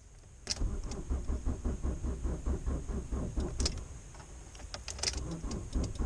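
2005 Fiat Punto II 1.3 Multijet diesel turning over on its starter motor in a slow, weak crank without firing, about six pulses a second. The owner is almost certain this is a faulty battery, which a tester puts at 12% health.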